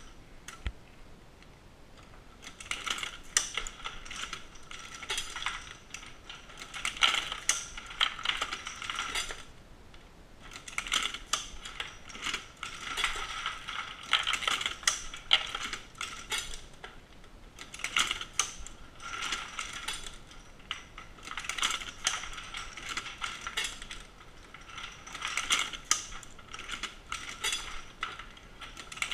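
Dillon SL900 shotgun-shell reloading press being cycled by hand: a burst of metallic clattering and ratchet-like clicks with each handle stroke, about every three to four seconds.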